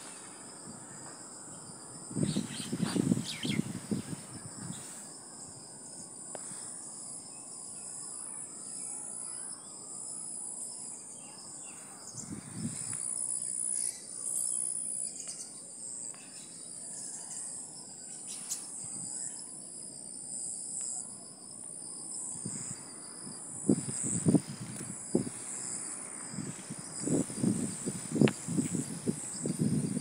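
A steady, high-pitched insect chorus of crickets or cicadas, with brief low rumbling bursts a few seconds in and again toward the end.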